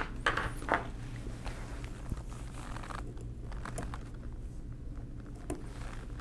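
Small pliers being picked up and handled against the steel centre gear of a 1920s Monroe mechanical calculator, making light clicks and taps, a few sharper ones in the first second, then fainter ones, over a steady low hum.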